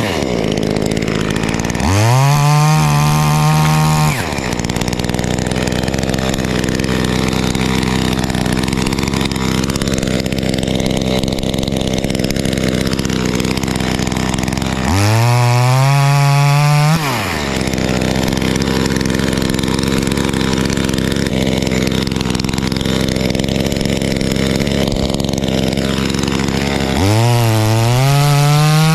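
Knockoff Echo 2511T top-handle two-stroke chainsaw idling, revved up to high speed three times, about two seconds each time.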